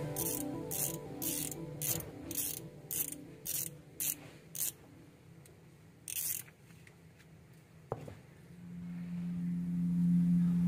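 A rhythmic series of short hissing bursts, about two a second, then one more burst a moment later and a single click. Background music is fading out at the start and comes back near the end.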